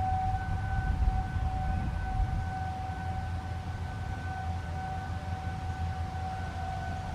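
ASC RM-127 civil defense siren sounding one steady, unwavering tone that swells and dips slightly in level, over a low rumble.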